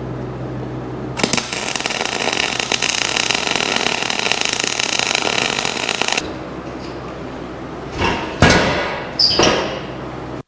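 Arc welder crackling for about five seconds while laying a build-up weld bead on a worn steel rerailing frog, over a steady low hum. Near the end come three sharp sounds that fall in pitch.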